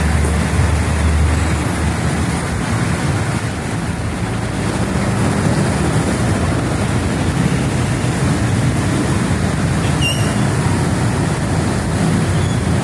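Heavy rain pouring steadily, with the engines of jammed road traffic running underneath as a low hum.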